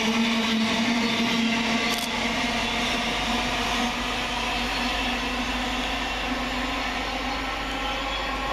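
Electric multiple-unit train pulling away, its traction equipment giving a steady multi-tone electric hum that slowly fades as it draws off. A single sharp click comes about two seconds in.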